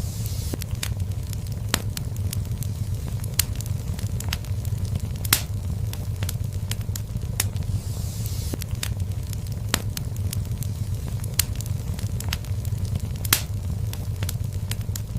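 Wood fire burning in a fireplace: a steady low rumble of flames with irregular sharp crackles and pops throughout, two of them louder about five and thirteen seconds in, and a brief soft hiss now and then.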